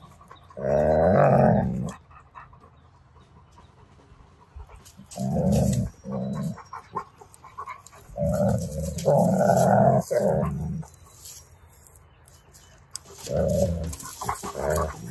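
Two wolf dogs growling as they play tug-of-war over a knotted rope toy, in four rough, low bouts of one to three seconds each.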